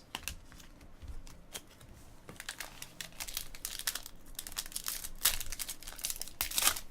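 Trading card pack wrappers crinkling and being torn open, with cards being handled: a quiet start, then a run of crackles that gets busier and louder from about two and a half seconds in.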